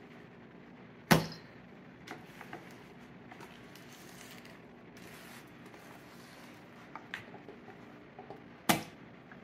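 Cake batter being scooped by hand out of a stand-mixer bowl into a stainless steel mixing bowl: soft handling sounds and small clicks, with two sharp knocks, one about a second in and one near the end, as the mixer bowl knocks against the steel bowl.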